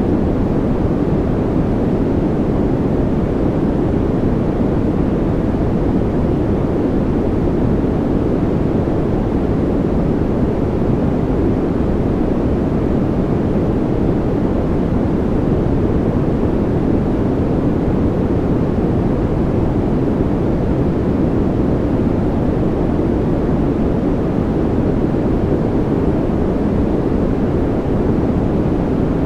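Steady, unbroken noise, deep and rumbling with little high hiss and no separate drops or events: a rain white-noise track for sleep.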